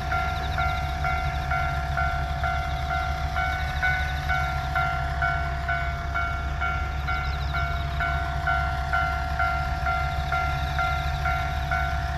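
Japanese railway level-crossing alarm ringing: an electronic bell dinging quickly and evenly over a steady tone, with a steady low rumble underneath.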